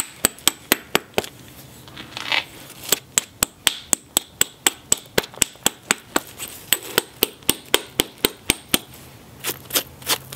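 Knapping billet rapidly striking the edge of a cherty mudstone biface: a run of sharp clicks of stone on stone tool, about four a second, with a pause near the start and a few last strikes near the end. The rock is tough and has to be hit hard and fast.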